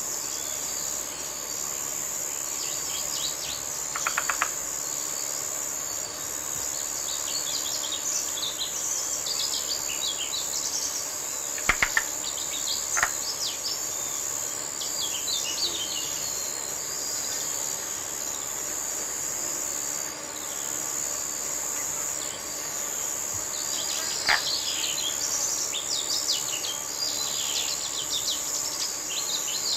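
Countryside ambience: a steady high insect drone with scattered short bird chirps, and a few brief clicks or knocks about 4, 12 and 24 seconds in.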